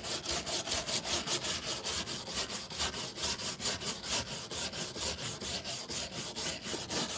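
A stiff hand brush scrubbing quickly back and forth across a wooden deck board in a fast, even rhythm of rasping strokes, scouring off old deck paint that has been softened with a torch.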